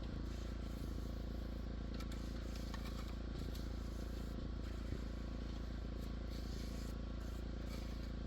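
An engine running steadily with an even, unchanging low hum and a few faint clicks over it.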